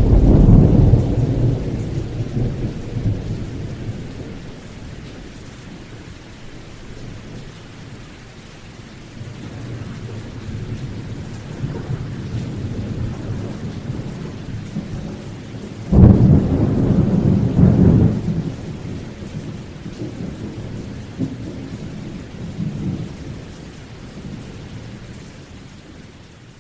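Thunderstorm: steady rain with thunder. A loud rumble at the start fades over several seconds, and about sixteen seconds in a sudden clap of thunder rumbles for a couple of seconds before dying away.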